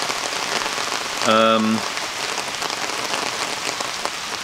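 Steady rain falling, with the ticks of single drops close by. A little over a second in, a short, low, steady tone lasting about half a second rises above the rain.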